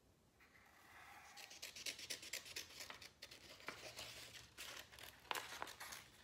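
Faint pencil scratching on construction paper, then, from about a second and a half in, small scissors snipping through the paper in irregular cuts, with the sheet crinkling as it is turned.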